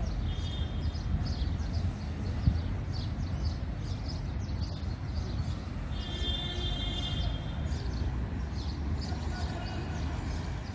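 Small birds chirping rapidly and repeatedly, with a couple of longer high calls, over a steady low rumble.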